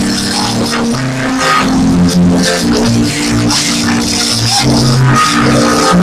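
Music with a steady beat: held low notes that change every half second or so, under busy high percussion.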